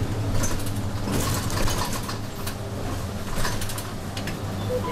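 Inside a route bus on the move: the engine hums steadily while irregular clicks and rattles come from the cabin fittings.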